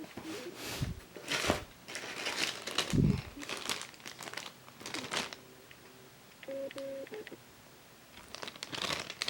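Packaging crinkling and rustling in irregular bursts as it is handled, with a soft thump about three seconds in.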